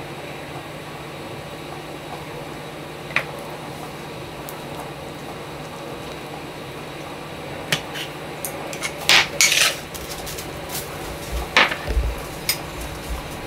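Wooden chopsticks clicking and tapping against ceramic plates while chicken pieces are dredged in starch and moved between plates: a few isolated clicks, then a busier run of clinks and knocks in the second half, over a steady low hum.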